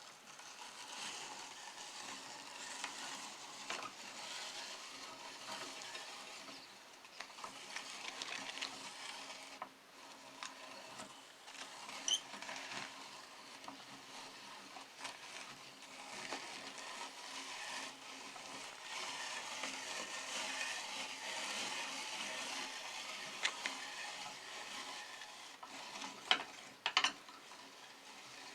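Meat grinder crushing Oreo cookies: a steady crackling, crunching grind with a few sharp cracks, easing briefly about ten seconds in.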